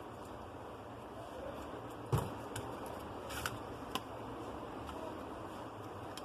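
A few light clicks and taps of small tools and phone parts being handled on a workbench, with one sharper knock about two seconds in, over a steady low room hum.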